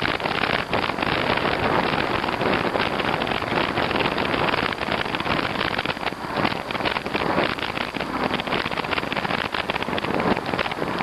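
Steady rushing wind on the microphone of an e-bike being ridden, rough and gusty throughout.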